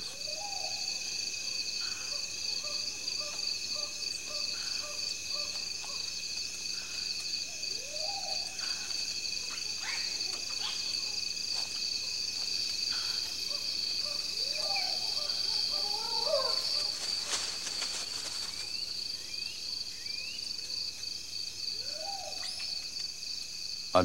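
Night insect chorus: crickets trilling steadily at a high pitch. Now and then short rising hoot-like calls from an unseen animal cut through, a handful of times, with a few faint clicks.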